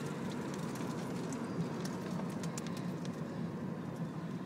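Tesla Roadster 2.0 electric sports car driving, heard from inside its cabin: steady road and tyre noise with a faint, even motor whine and scattered light ticks.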